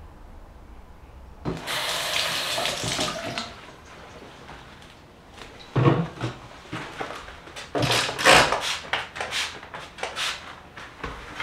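A steady rushing noise for about two seconds, then irregular short rubbing strokes: a rubber-gloved hand wiping a bathroom mirror and vanity top with a damp cloth.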